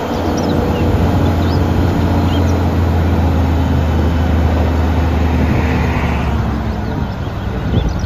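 Diesel engine of an eight-wheel tipper truck running steadily with a deep hum while the hydraulic ram raises the tipping body.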